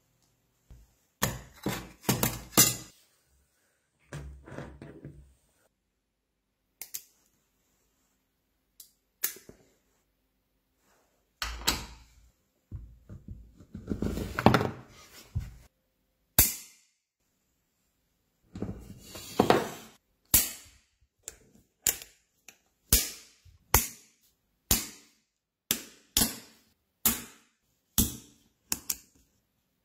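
Magnets clicking and clacking against each other and against metal, with a denser rattling stretch about halfway through. In the last third, small neodymium cube magnets snap onto a metal sheet one at a time: a steady series of sharp clicks, a little over one a second.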